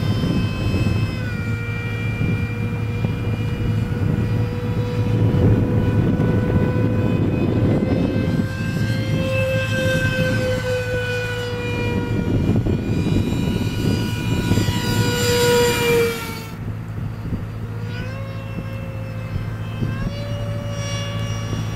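Electric ducted fan (70 mm) of a radio-controlled foam Alpha Jet whining in flight, its pitch stepping and drifting with the throttle. The whine drops sharply and quietens about sixteen seconds in, then steps back up twice near the end.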